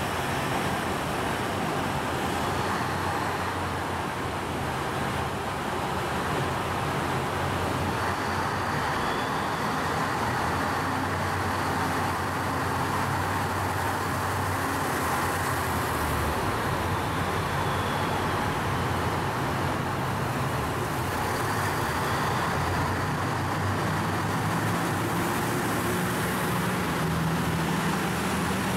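JR Hokkaido KiHa 150 diesel railcar pulling out of the platform and passing close by, its diesel engine running under power with steady engine and running-gear noise.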